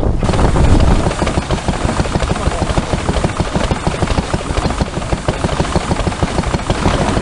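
Vintage stationary engine running, with a rapid, even beat of exhaust knocks.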